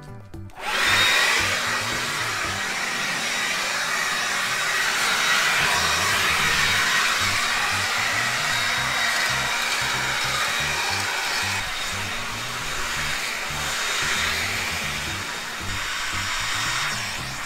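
Ryobi ONE+ 18-volt cordless leaf blower switched on about half a second in and then running steadily: a rushing blast of air with a thin high whine from the fan, over background music.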